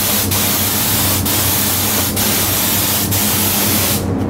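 Conventional siphon-feed compressed-air spray gun spraying paint: a loud steady hiss of air and atomised paint, broken by brief dips about once a second, that stops about four seconds in.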